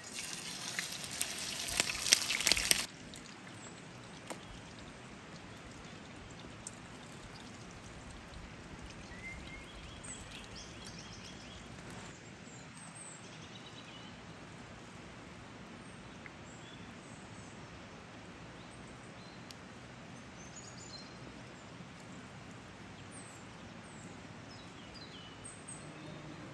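A whole fish laid on a hot ridged grill pan over campfire embers sizzles loudly for about three seconds, with crackling and a few sharp pops, then cuts off suddenly. After that there is a quiet outdoor background with scattered bird chirps.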